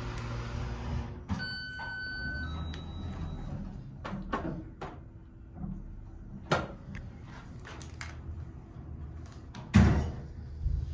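Otis HydroFit hydraulic elevator: the low, loud hum of its running machinery stops about a second in as the car halts. An electronic arrival chime of steady tones follows, then clicks and several door thuds as the car doors open and close, the loudest thud near the end.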